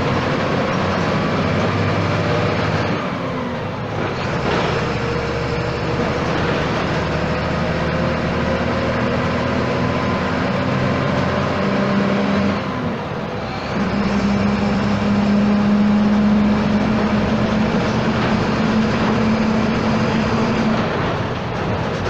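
Volksbus 17-230 EOD bus's diesel engine running under way, its pitch climbing steadily. The engine note breaks and the sound dips briefly twice, about three and about thirteen seconds in, as at gear changes, then climbs again.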